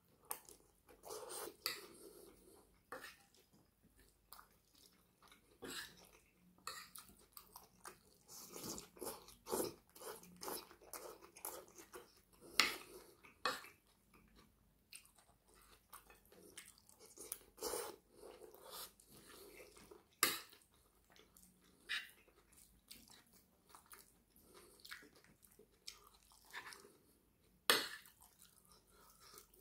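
Faint close-up chewing and crunching of raw cucumber-and-onion salad and curry, with a few sharper clicks of a metal fork against the plate.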